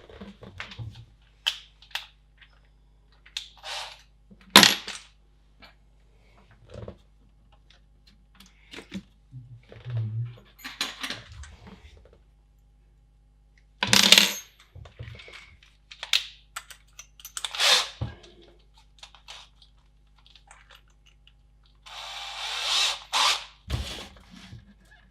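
Clicks, knocks and rattles of small parts being handled against a plastic computer case, with short rasping bursts of drilling to enlarge the switch hole in the plastic. The longest burst, about a second and a half, comes near the end.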